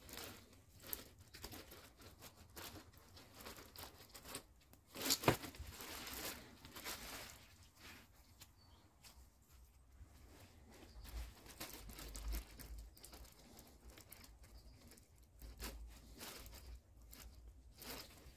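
Close handling noises of a bonsai lemon tree being wired by hand: leaves rustling and small clicks and scrapes of wire, with a cluster of sharper clicks about five seconds in.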